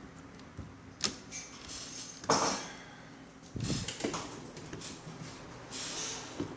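Clicks, knocks and scrapes of a netbook's small hard parts being handled during disassembly, the loudest a sharp knock a little over two seconds in.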